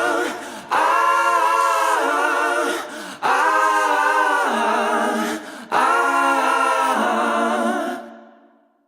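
Background music: sustained choral voices holding long chords in three phrases, fading out near the end.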